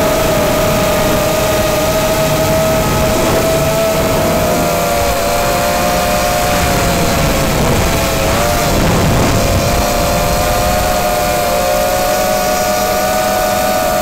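Small drone's electric motors and propellers whining steadily in flight, several close tones that drift apart and together as the motor speeds change, dipping briefly about eight seconds in, over a steady rushing hiss.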